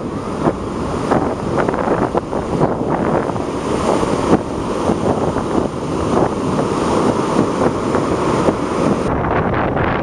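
Wind buffeting the microphone over the steady wash of ocean surf on a beach, a loud continuous roar with gusty bumps.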